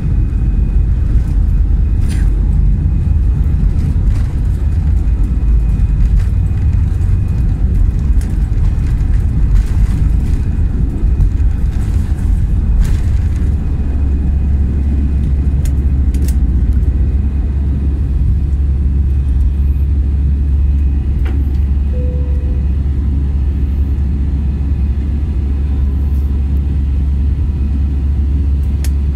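Airbus A320-200 cabin during takeoff: loud engine and runway rumble with scattered rattles, which about halfway through settles into a smoother, steady low drone as the jet lifts off and climbs.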